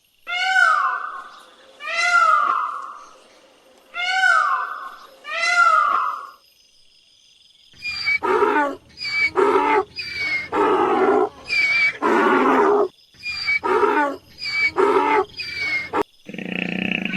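Animal calls: four drawn-out cries falling in pitch, in two pairs, then after a short pause a quick run of about a dozen short, harsh calls.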